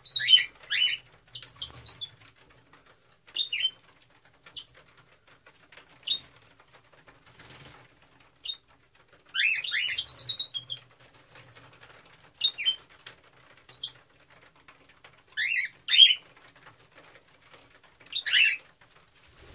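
Cockatiels giving short chirping calls that slide down in pitch. They come in scattered bouts every second or two, with the busiest stretch about halfway through.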